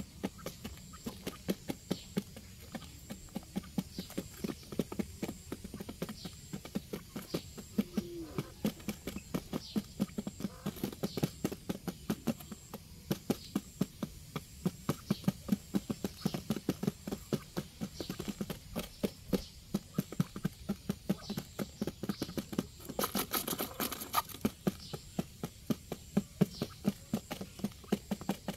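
Quail pecking grain off a cardboard sheet: quick, irregular taps of their beaks, several a second. A brief scratchy burst comes near the end.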